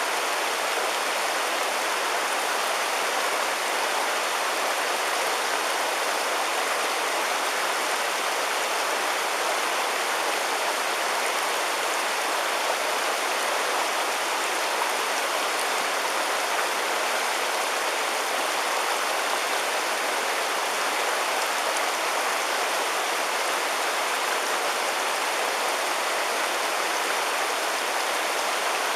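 River water flowing in a steady, even rush: the Dōshi River's current.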